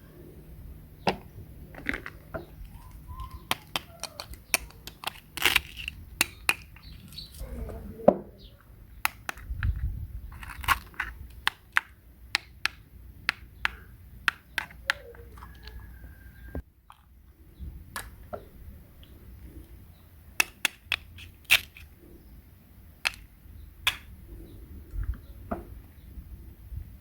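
Irregular sharp clicks and knocks of small hard objects being handled, some coming in quick runs, with a brief lull about two-thirds through.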